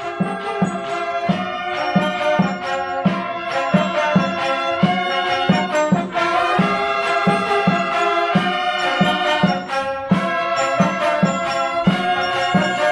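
Drum and bugle corps playing: a brass bugle line sounds a melody in chords over a steady marching drum beat, a little over two hits a second.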